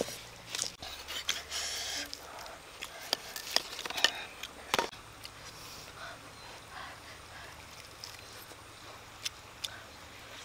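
A large knife cutting grilled beef ribs on a woven bamboo basket: scattered sharp knocks and scraping, the loudest about four to five seconds in. After that only faint small sounds, from someone gnawing meat off a grilled rib.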